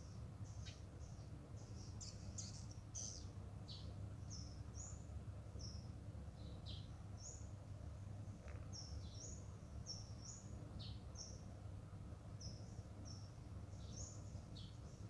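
Small birds chirping: short high chirps and a few quick downward-sweeping notes, several a second, over a faint steady low rumble.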